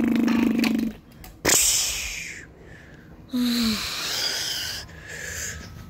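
A child's mouth sound effects for a toy ship battle: a steady buzzing hum that stops about a second in, then two hissing 'pshh' blasts, the second starting with a short falling tone.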